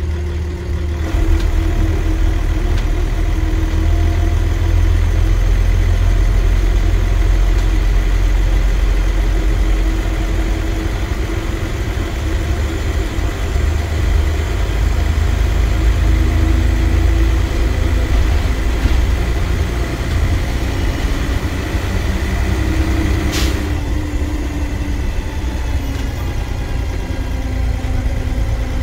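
Dennis Trident double-decker bus's diesel engine and transmission under way, heard from the upper deck: a deep steady rumble that gets louder about a second in, with the engine note climbing several times and a faint steady high whine. A single sharp knock sounds about 23 seconds in.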